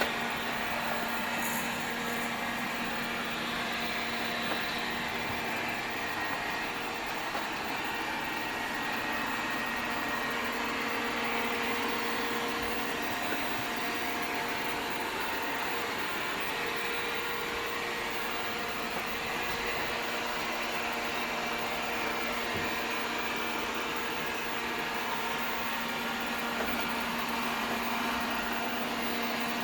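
Vacuum cleaner running steadily with a constant motor hum.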